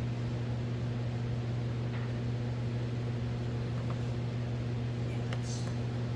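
A steady low electric-motor hum at an even pitch, with a few light clicks of parts being handled, the clearest about five seconds in.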